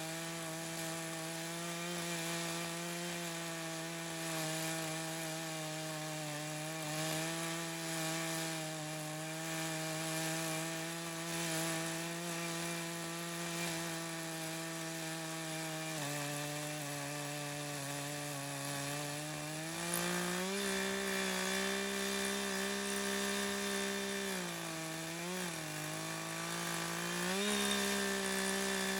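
Echo CS-590 Timber Wolf two-stroke chainsaw running at high revs with a ripping chain, milling along a red oak cant in a homemade chainsaw mill. Its steady pitch shifts a little partway through, then dips briefly and recovers a few times near the end as the chain loads up in the cut.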